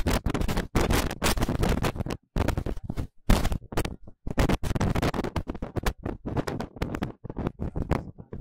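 Rough scratching and crackling noise on the microphone, coming and going irregularly, with several brief drop-outs where it cuts to near silence.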